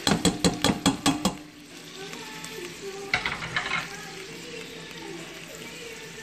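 A metal colander knocked rapidly against the rim of a stainless steel pot, about eight sharp metallic taps, shaking boiled red potato chunks out into the pot. A second, shorter clatter of metal on metal comes about three seconds in.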